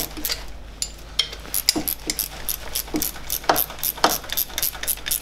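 Ratchet wrench clicking in quick runs as the dynamo's mounting bolts are nipped up, with a few louder metallic clacks near the end.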